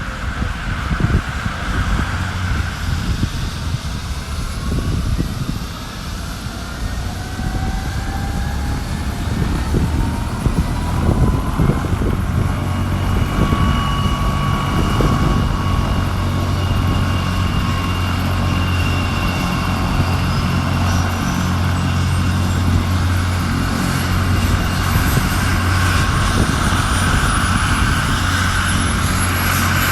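Air ambulance helicopter's turbine engines whining, the whine rising slowly and steadily in pitch as the engines run up, over a steady low rotor drone that grows louder.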